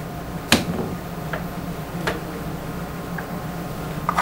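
Parts of a Lee Pro 1000 reloading press clicking as they are worked: a handful of sharp clicks, about a second apart, the loudest about half a second in and a quick pair near the end, over a steady low hum.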